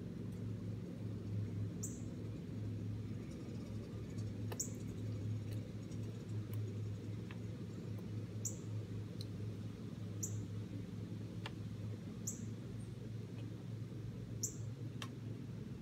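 Northern cardinal giving short, high, sharp chip notes about every two seconds, over a steady low hum in the background.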